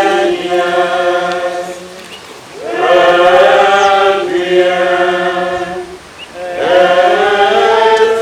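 Voices singing a slow liturgical chant in long held notes, in three phrases with short breaks between them.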